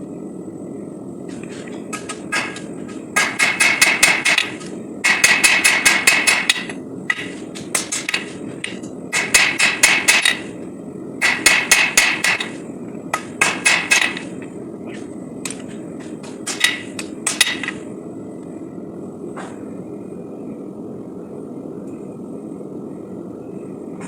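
Hand hammer striking hot SAE 5160 steel on an anvil in quick runs of blows, each strike with a ringing tone; the hammering stops about three-quarters of the way through. A steady rushing noise runs underneath throughout.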